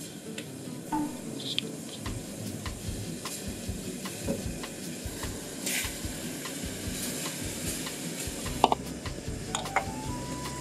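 Sauce simmering in a hammered aluminium saucepan on a gas burner, with small clinks of chopsticks and bowl against the pan as ginger slices and then raw chicken livers and hearts are tipped in. One louder knock comes near the end.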